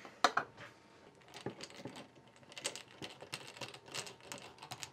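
Irregular clicks and light knocks of a screwdriver being set into and turning the screws of a small metal electronics case, with a sharp click about a quarter second in.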